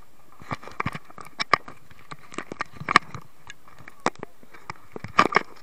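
Irregular knocks and rustling from a body-worn camera being jostled as its wearer moves about, with scattered footsteps on artificial turf. There is a cluster of louder knocks about five seconds in.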